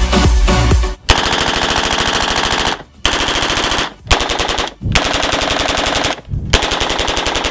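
Electronic dance music cuts off about a second in, then submachine guns fire fully automatic in five long bursts of rapid shots with brief gaps between them.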